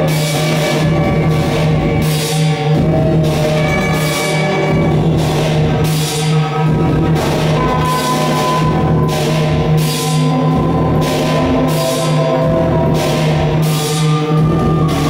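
Loud live electronic noise music: a steady low drone with held tones above it, cut by a regular hissing pulse that comes a little more than once a second.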